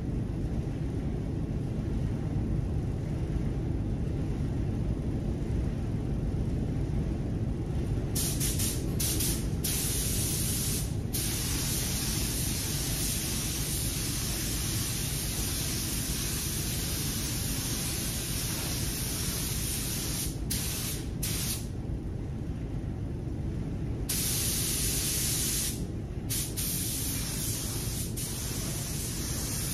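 Tuba TH101AG gravity-feed spray gun hissing with compressed air as it sprays clear coat, in repeated trigger pulls. The hiss starts about a quarter of the way in and breaks off briefly several times, with a longer pause about two-thirds through. A steady low rumble runs underneath.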